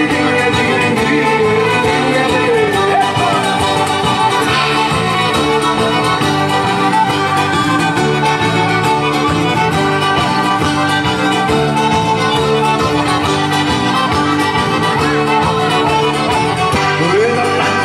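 Live folk band playing an instrumental passage on fiddle and acoustic guitar over a steady, repeating rhythm.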